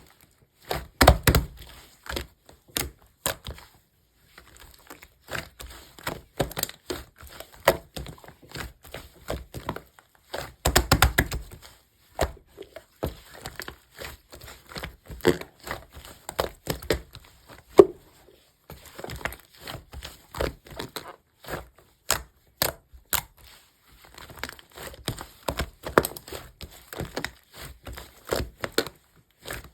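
Slime being pressed, stretched and squished by hand, giving a steady run of small crackles, clicks and pops. Heavier squishes come about a second in and again around ten seconds.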